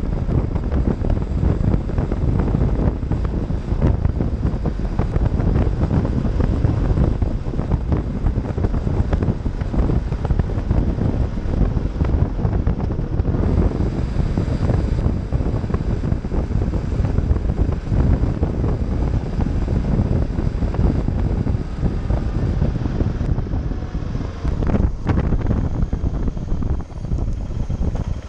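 Wind rushing over the camera microphone of a BMW G650GS motorcycle riding at road speed, with its single-cylinder engine running underneath. Near the end the wind noise eases slightly as the bike slows.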